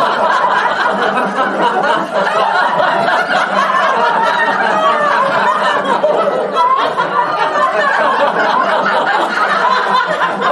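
A group of men and women laughing loudly together, many overlapping laughs at once.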